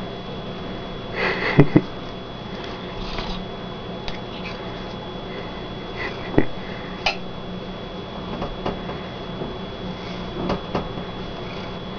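A long-haired calico cat sniffing and rubbing its face against a small metal object held in a hand: soft rustling with a few brief clicks and knocks, over a steady low hum.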